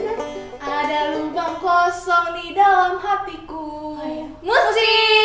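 Girls' voices singing without accompaniment in short held phrases, ending on a long note that slides up and is held near the end.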